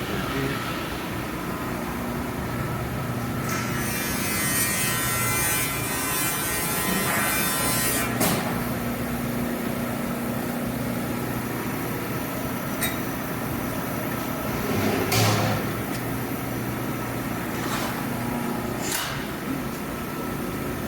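Steady machinery hum on a sheet metal fabrication shop floor, with a hissing stretch a few seconds in and a few sharp metallic knocks later on.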